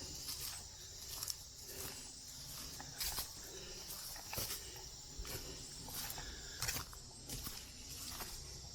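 Footsteps crunching along a leafy woodland trail at a walking pace, about one step every three-quarters of a second.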